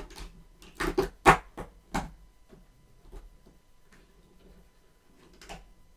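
Hand opening a compartment of an advent calendar box and handling what is inside. There are several sharp clicks and knocks in the first two seconds, then faint handling noises, then one more knock near the end.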